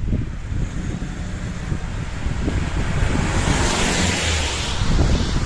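Wind buffeting the microphone, with the swelling hiss of tyres on a wet road as a van passes close by about three and a half seconds in.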